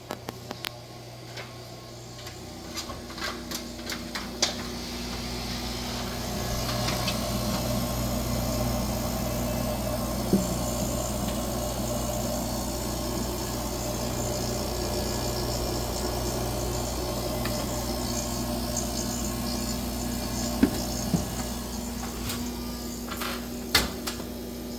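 Woosung commercial 45-box refrigerator's compressor running with a steady hum, working normally again after a burned-out part beside it was replaced. The hum grows louder about five seconds in, with a few clicks and taps over the first few seconds and a couple more later.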